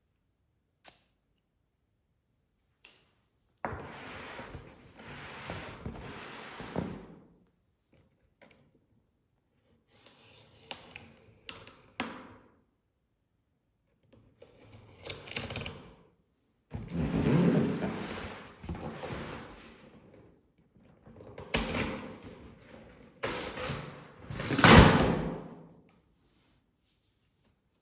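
Packaging being handled and opened by hand: a couple of sharp clicks, then bursts of rustling and scraping separated by short pauses, loudest near the end.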